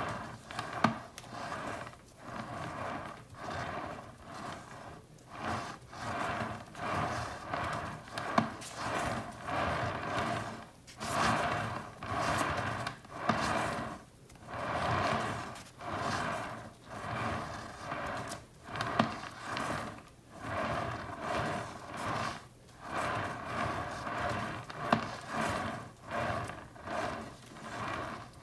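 Swivel turntable spinning under a canvas and pushed round by hand again and again, its rolling whir swelling and fading about once every second or so. It does not keep spinning on its own, so it slows quickly between pushes.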